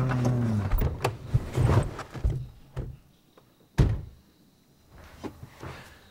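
A drawn-out voice trailing off and falling in pitch, then a series of knocks and thunks from movement inside a car, with one loud thunk about four seconds in.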